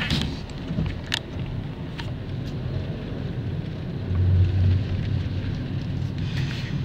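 Low, steady rumble of a car driving, heard from inside the cabin, with a few faint clicks and a brief low swell a little past the middle.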